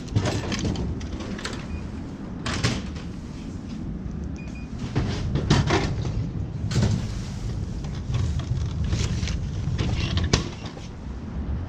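Coin dropping into a Japanese drink vending machine, followed by a series of clicks and clunks as the machine dispenses a can and the can is pulled out through the tray's flap, over a steady low rumble.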